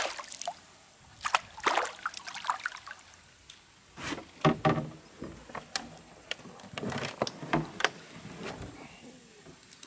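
A large hooked fish thrashing and splashing at the water's surface beside a small boat, in several irregular bursts of splashing and sloshing, with a few hollow knocks against the hull.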